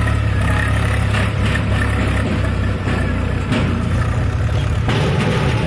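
Swaraj 735 FE tractor's three-cylinder diesel engine running steadily as the tractor drives across a tilled field. The engine note shifts about five seconds in.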